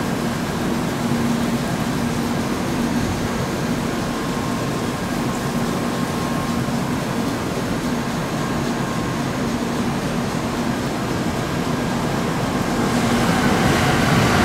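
N700-series Shinkansen train running past on a snow-covered track: a steady rumble with a low hum, growing louder and hissier about 13 seconds in as the cars go by.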